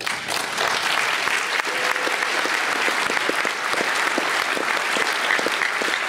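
Large audience applauding: dense, steady clapping that breaks out right at the start and keeps up without fading.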